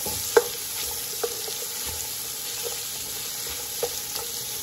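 Chopped garlic, onion and ginger sizzling in hot oil in a metal pot while a wooden spoon stirs them. The spoon knocks against the pot several times, loudest about half a second in.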